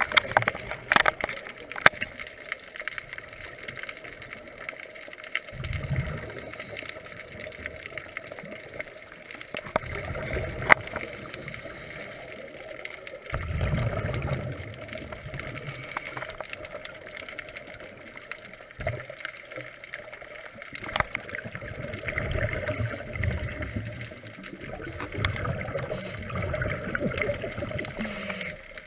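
Scuba diver's regulator breathing heard underwater through the camera housing: muffled rushes of exhaled bubbles every several seconds over steady water noise, with a few sharp clicks.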